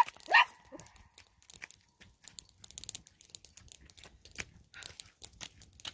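A short cry right at the start, then scattered faint clicks and crinkles of a plastic zip-lock bag and small items being handled.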